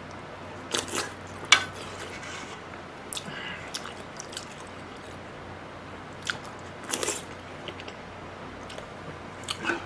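Close-up eating sounds of a person chewing and slurping seaweed soup ramen from a wooden spoon. Wet smacks and clicks come in small clusters, the sharpest about a second and a half in.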